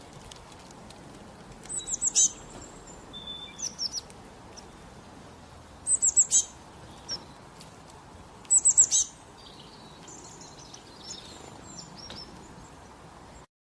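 Birdsong: a songbird gives a quick run of four or five high, sharp notes three times, a few seconds apart, with softer high chirps in between, over a steady faint hiss. The sound cuts off suddenly near the end.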